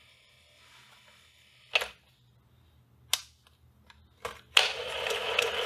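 Controls of an AIWA TP-31 portable reel-to-reel tape recorder clicking several times as they are worked. About four and a half seconds in, a louder clunk sets the tape transport running fast: a steady whir with regular ticking as the reels spin, winding the tape back.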